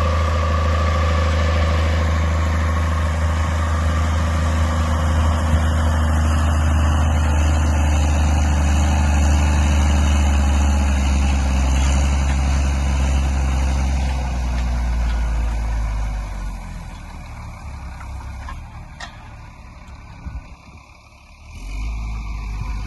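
Schlüter E7800TV tractor's diesel engine running steadily under ploughing load. About two-thirds of the way through it dies away to a much lower level, then swells briefly again near the end.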